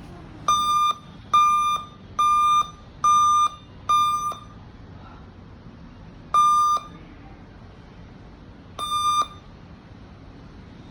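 A laptop beeping: seven identical high electronic beeps, five in a row about a second apart, then two more after longer gaps.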